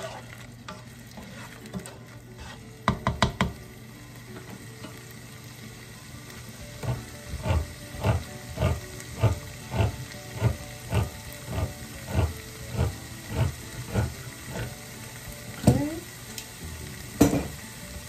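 Diced tomatoes and minced garlic sizzling in hot olive oil in a nonstick skillet while a utensil stirs and scrapes through the pan. There is a quick cluster of knocks about three seconds in, then a steady rhythm of nearly two strokes a second through the middle, and a couple of louder knocks near the end.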